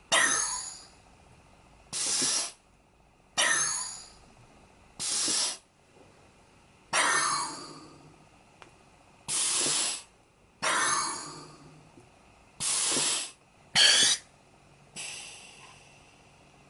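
Compressed air hissing into and out of pneumatic artificial muscles as they are inflated and vented, about ten short hisses in turn. Some hisses hold steady for about half a second. Others start sharply and fade away with a falling tone.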